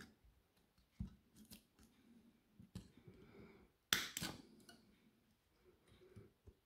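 Side cutters snipping the nickel strips that join the battery cells to the circuit board, with small handling clicks: a few light snips, then two sharp snaps in quick succession about four seconds in.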